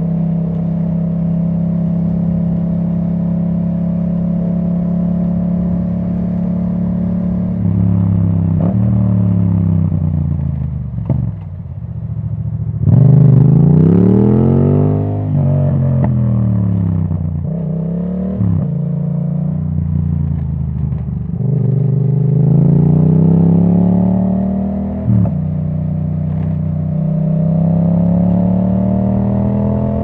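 2017 Yamaha MT-07's parallel-twin engine through an Akrapovic titanium exhaust with the dB killer removed, heard from the rider's position. It holds a steady note for several seconds, then accelerates through the gears: the pitch climbs and drops sharply at each quickshifted upshift, loudest a little before the middle.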